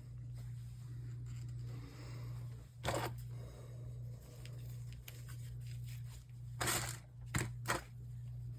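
Monitor parts being handled during the teardown: a few short knocks and rustles, one about three seconds in and a cluster near the end, over a steady low hum.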